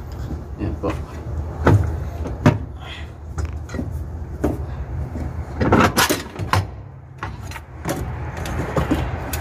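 Vacuum brake booster of a Nissan pickup being wiggled and pulled free from the firewall: irregular metal knocks and clunks, with a louder cluster of rattles about six seconds in, over a steady low hum.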